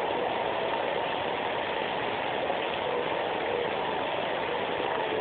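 Steady rush of running water, as from a tap, with no break or change.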